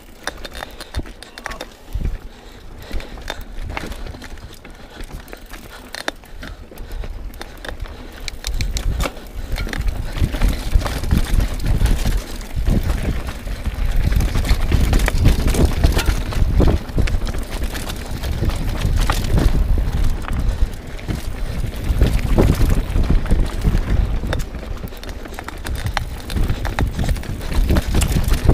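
Mountain bike riding over rocky singletrack: tyres crunching over rock and dirt, with many sharp rattles and knocks as the bike jolts over bumps. A low rumble under it grows much louder about nine seconds in.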